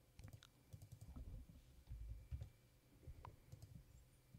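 Faint, scattered computer mouse clicks and keyboard key presses, with a few low thumps.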